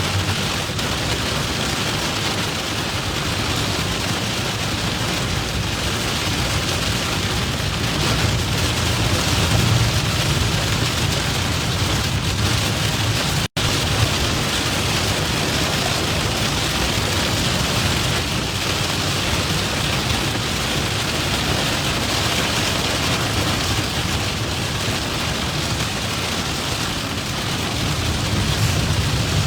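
Heavy rain beating on a moving vehicle: a steady, dense hiss with the vehicle's low rumble beneath. The sound drops out for an instant near the middle.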